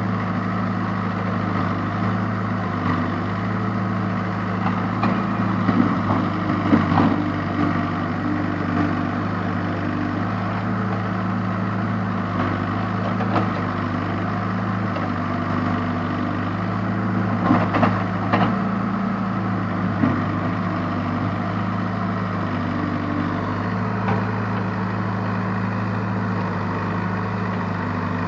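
Case backhoe loader's diesel engine running steadily at work, with clusters of knocks and rattles a few seconds in and again past halfway.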